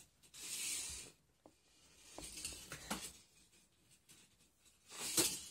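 Toy car launched down an orange plastic track: a short rolling hiss about half a second in, scattered clicks and rattles a couple of seconds later, and a louder scratchy clatter near the end.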